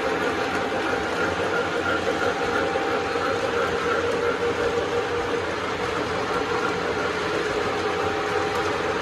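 O gauge model trains running on three-rail track: a steady whir of their motors and wheels rolling over the rails, with a held hum underneath.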